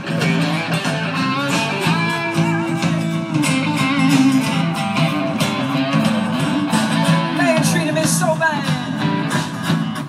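Live band playing guitar-driven rock music, with a voice singing over it, recorded from the audience through a phone's microphone.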